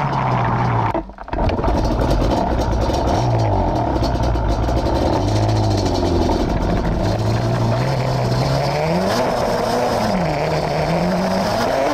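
Yamaha Banshee two-stroke twin ATV engine under way, its pitch rising and falling again and again as the throttle is worked, with a brief sharp drop in sound about a second in.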